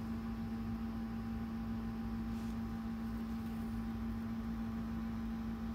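Steady electrical hum with a low rumble and faint hiss of room noise.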